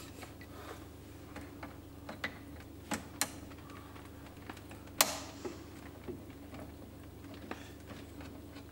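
Scattered clicks and small knocks of a hose and spring hose clamp being worked onto a fitting with multi-grip pliers, the sharpest click about five seconds in, over a steady low hum.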